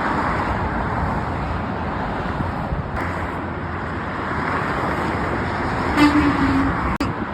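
Steady freeway traffic noise, a dense rush of tyres and engines, with a single short horn blast from a truck about six seconds in, lasting under a second.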